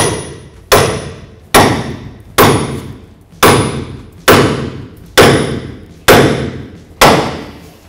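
Nine hammer blows, a little under a second apart, on a steel pickle fork wedged into a steering tie rod end. Each is a sharp strike with a short ring as it dies away. The fork is being driven in to wedge the tie rod end's tapered ball stud out of its socket.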